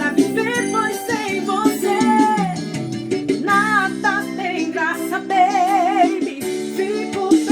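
A song: a singer's voice with marked vibrato over a steady instrumental accompaniment.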